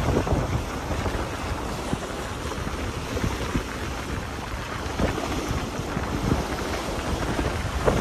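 Wind buffeting the microphone over choppy lagoon water, with small waves slapping and splashing against rocks and a stone seawall; a few louder splashes come in the second half.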